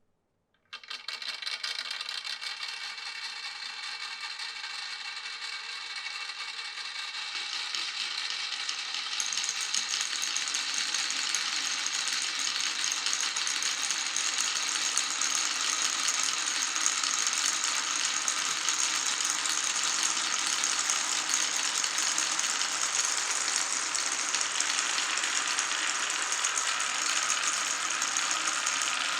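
Many glass marbles rolling and clattering down a wooden marble run, a dense continuous rattle that starts about a second in and grows louder and brighter about a third of the way through.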